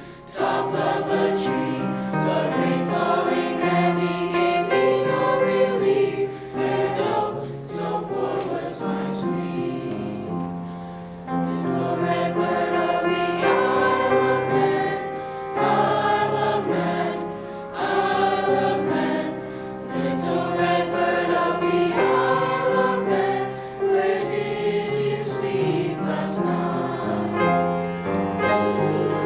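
Junior high school choir singing a Manx lullaby, phrase after phrase, with brief dips in loudness between phrases.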